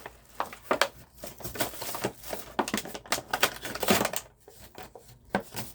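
Plastic packaging being handled: irregular crinkles and sharp clicks as a diecast model set is worked out of its box.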